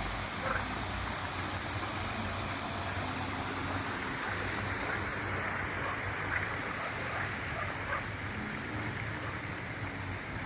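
Frogs calling in chorus: a steady wash of sound with short single calls standing out now and then.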